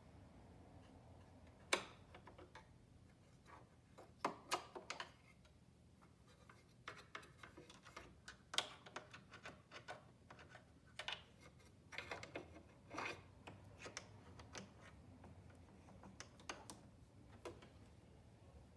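A small brush scrubbing and tapping inside the bobbin area of a Janome 2212 sewing machine to clear out lint, making faint irregular scratches and clicks.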